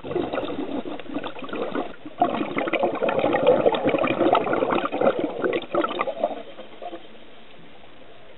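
Underwater bubbling and gurgling water noise picked up by a camera in the water, loudest in the middle and easing to a faint steady hiss about seven seconds in.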